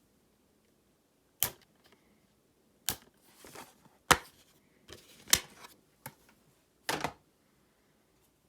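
A series of six sharp clicks or knocks, irregularly spaced about one to one and a half seconds apart, with soft rustling between some of them.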